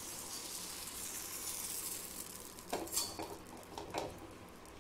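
Fermented rice-and-urad-dal appam batter sizzling in a hot appam pan as the pan is swirled to spread it, the hiss slowly fading. About three seconds in, a few knocks as the metal pan is set back on the gas burner.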